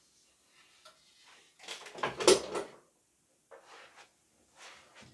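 Wall-mounted PC case being lifted off its metal wall-mount bracket: a burst of clunking and scraping about two seconds in, then a few softer knocks.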